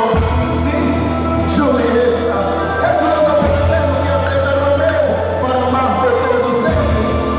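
Festa junina quadrilha music with singing: a voice carrying the melody over sustained bass notes that shift twice.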